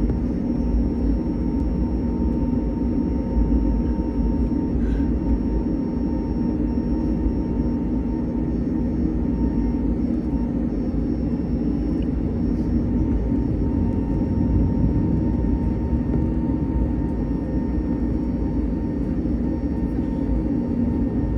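Steady cabin rumble and hum of an Airbus A321neo airliner on the ground after landing, heard from inside the cabin, with a few faint clicks.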